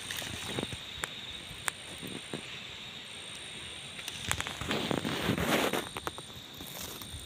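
Dry grass stalks rustling and crackling as a hand pushes through them, with scattered sharp snaps and a louder burst of rustling a little past the middle. A faint, thin, high insect trill comes and goes in bouts of about a second.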